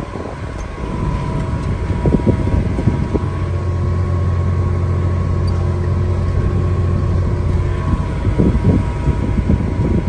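Farm tractor's engine running steadily while driving, heard from inside the cab as a low, even drone. A few knocks and rattles come through in the first few seconds and again near the end.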